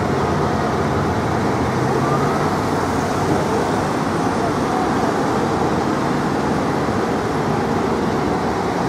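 Motorcade SUVs and vans driving past: a steady wash of engine and tyre noise, with a faint siren glide about two seconds in.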